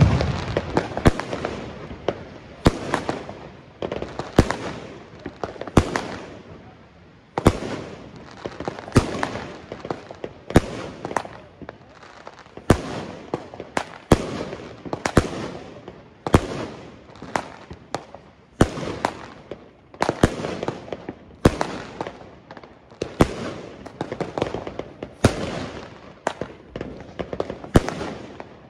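A 25-shot salute cake of 0.6-inch tubes from Original firing shell after shell. Each shell goes off with a sharp, loud bang, about one every one to two seconds, and each bang trails off in echo.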